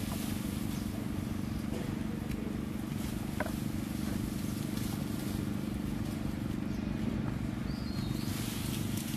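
A steady low hum, with a faint tick or two as the plastic water bottle is handled.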